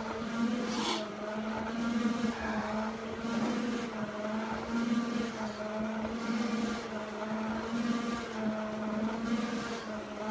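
Firefighter breathing hard through an SCBA mask and regulator during a stair climb. A hiss comes with each breath, about every second and a half, over a steady machine hum.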